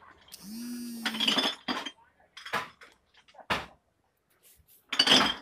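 Small metal tools and parts clinking and tapping on a hard surface during desoldering work, with the loudest clatter near the end. About half a second in there is also a short steady tone.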